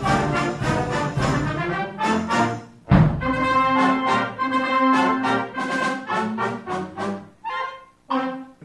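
Band music led by brass instruments, trombones and trumpets playing sustained notes, with a sharp loud accent about three seconds in and two brief breaks near the end.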